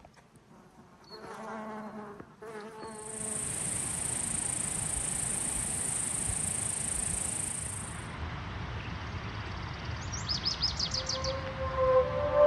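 An insect's high, steady buzz that starts abruptly, holds for about five seconds and stops, followed by a quick run of about eight chirps. Music comes in near the end.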